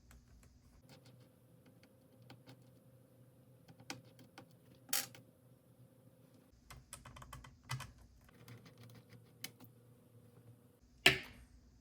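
Small screws being taken out of a laptop's speaker mounts: light clicks and taps of a precision screwdriver and tiny parts against the chassis, over a faint steady hum. A louder click comes about five seconds in and a sharp knock about eleven seconds in.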